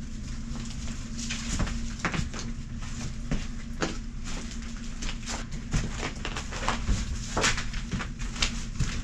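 Footsteps through an old house: irregular knocks and crunches, one or two a second, over a steady low rumble.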